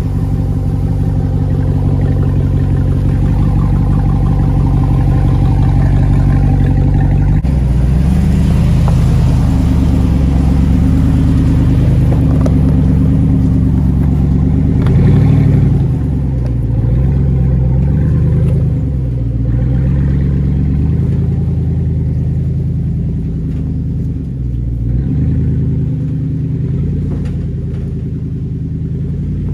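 Jeep Wrangler Rubicon 392's 6.4-litre HEMI V8, with an aftermarket exhaust, running at low revs while crawling over rock ledges. It holds a steady note at first, then the pitch rises and falls with throttle, swelling loudest about halfway through.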